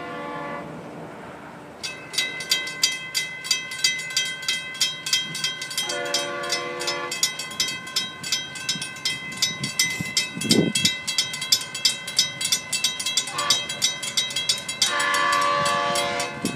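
Grade-crossing bell ringing in rapid, even strokes once the crossing activates, about two seconds in. Over it, the approaching Florida East Coast GP40-2 locomotive sounds its horn: a blast of about a second around six seconds in, a short toot around thirteen seconds, and a longer, louder blast near the end, in the pattern of a crossing warning.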